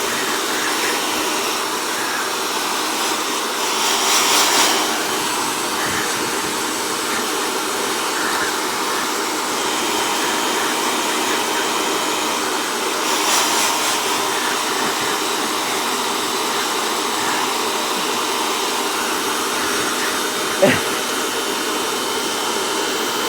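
Handheld hair dryer running steadily, blowing air. The rush swells briefly twice, and a single sharp knock comes near the end.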